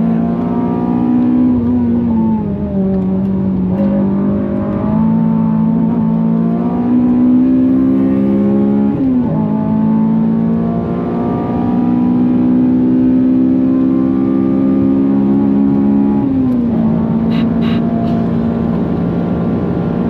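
Honda Civic FN2 Type R's K20 four-cylinder engine pulling hard under full throttle. Its pitch climbs steadily through each gear and drops sharply at the gear changes, most clearly about nine seconds in and again around sixteen seconds in.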